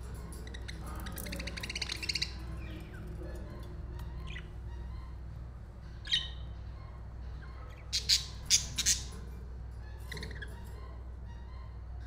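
Pet budgerigars chirping and chattering: a buzzy warble about a second in, a few scattered single chirps, and four loud, sharp squawks in quick succession about eight seconds in, over a steady low hum.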